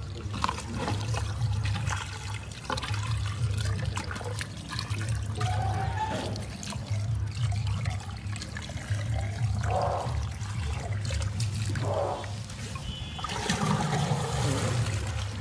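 Water trickling and splashing as it is poured from a plastic jar onto a young elephant's trunk, over a steady low hum.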